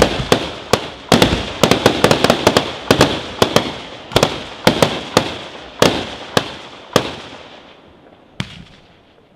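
Aerial firework shells bursting in a rapid run of sharp bangs and cracks. The bangs thin out after about four seconds, come only now and then, and die away near the end.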